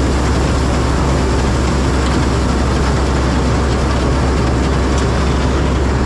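Rice combine harvester running steadily while it reaps paddy, its engine and machinery making a loud drone with a strong, unchanging low hum, heard close up from the driver's seat.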